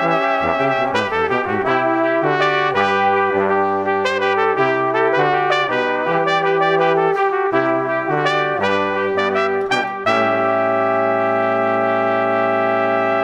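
Brass-band music playing a melody, ending on a long held chord from about ten seconds in.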